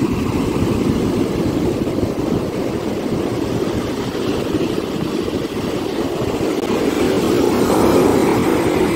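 Rough surf breaking and washing up a sand beach, with wind rumbling on the microphone; a steady, deep rush that swells near the end as a large wave breaks close in.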